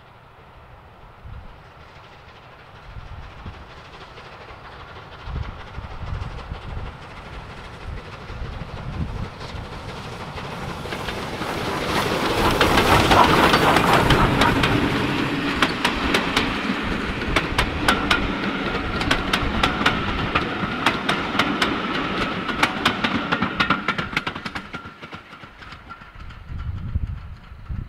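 A steam locomotive hauling a train of coaches approaches and passes, loudest about halfway through. Its wheels then clatter rapidly over the rail joints as the coaches go by, and the sound fades near the end.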